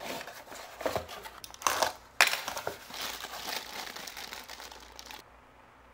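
Clear plastic bag crinkling and rustling as a boxed figure in it is pulled out and handled. There is a sharp, loud rustle about two seconds in, and the crinkling cuts off suddenly about five seconds in.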